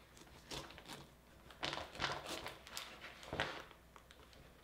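Kitchen knife cutting into a durian's thick spiky husk along its seam: several short, crunchy crackles as the blade works through the rind.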